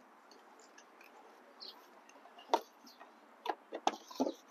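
Hard plastic battery cover being handled and fitted over a car battery: a few sharp clicks and knocks, one about two and a half seconds in and a quick cluster near the end.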